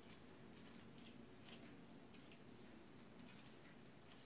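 Faint crinkling and rustling of aluminium foil being twisted into a spiral by hand, with one short high chirp about two and a half seconds in.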